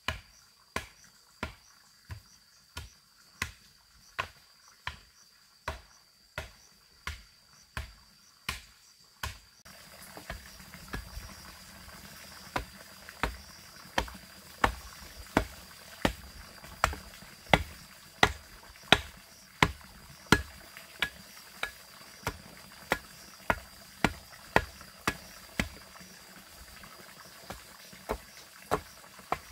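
A hand tool striking wood in a steady, even rhythm, about three blows every two seconds, over a steady high trill of insects. About ten seconds in, a louder background hiss comes in while the blows go on.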